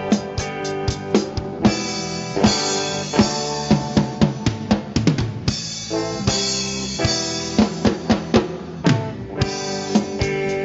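Rock music with no vocals: a drum kit keeps a steady beat of bass drum and snare hits under sustained chords.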